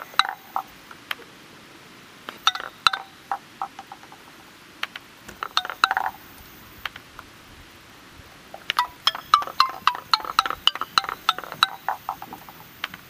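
Wooden xylophone bars struck in quick runs of short, pitched wooden notes, in four bursts with pauses between; the longest run comes in the second half.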